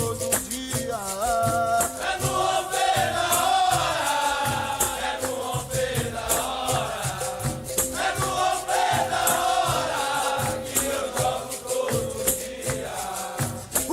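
Capoeira song: voices singing over a shaken rattle and steady percussion, the typical sound of a berimbau with its caxixi.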